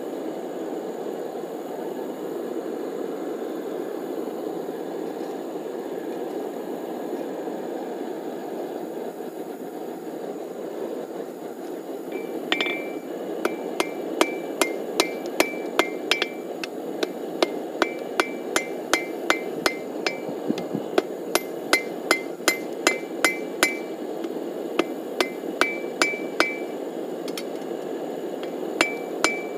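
Hand hammer striking red-hot steel cable on an anvil, forge-welding the strands into cable Damascus. From about twelve seconds in come runs of sharp blows, a couple a second, each with a short high ring from the anvil, with brief pauses between runs, over a steady low rushing noise.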